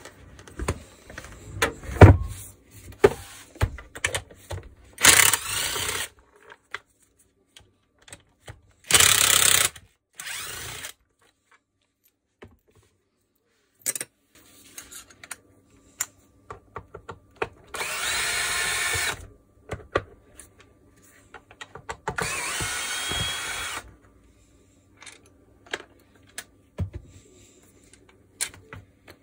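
Cordless screwdriver backing screws out of a plastic tool housing in four short runs, each a second or two long, with clicks and knocks of handled parts in between.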